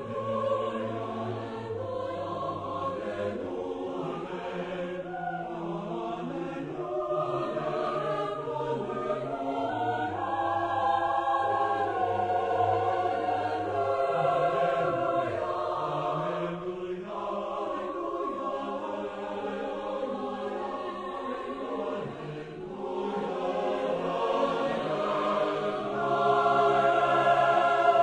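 Choir singing an Alleluia in held, overlapping chords, growing louder near the end.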